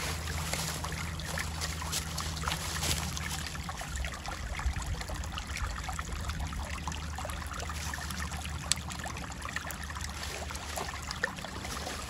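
Small forest stream trickling steadily, with scattered faint clicks over it.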